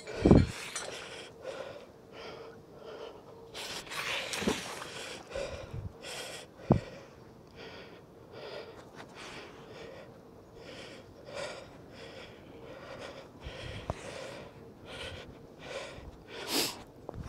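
A person breathing hard close to the microphone while handling a magnet-fishing rope, with rustling and a few sharp knocks.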